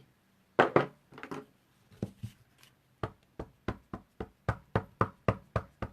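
Rubber stamp being patted repeatedly onto an ink pad to ink it: a couple of louder knocks near the start, a few scattered taps, then an even run of light knocks about four a second in the second half.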